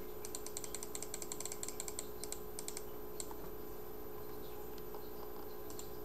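Typing on a Havit tenkeyless mechanical keyboard with clicky blue switches and foam in the case: a fast run of key clicks for about the first three seconds, then only a few scattered keystrokes.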